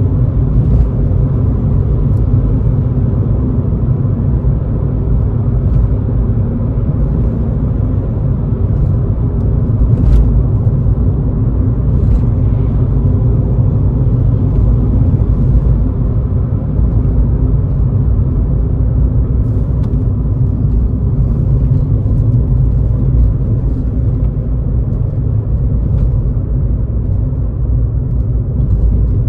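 2011 Škoda Fabia's 1.6 TDI four-cylinder turbo diesel and its tyres heard from inside the cabin while cruising: a steady, deep drone of engine and road noise.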